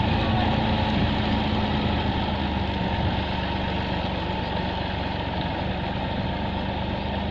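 Massey Ferguson 260 tractor's three-cylinder diesel engine running steadily as it pulls a heavily loaded trolley, growing a little fainter after about three seconds as it draws away.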